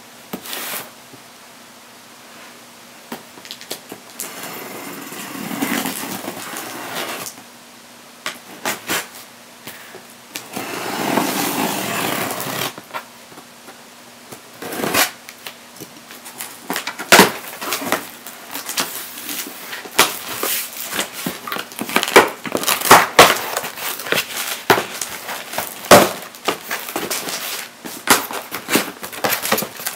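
Packing tape on a cardboard box being slit with scissors in two drawn-out strokes. Then the box flaps are pulled open and the cardboard is handled in a run of sharp clicks, knocks and rustles.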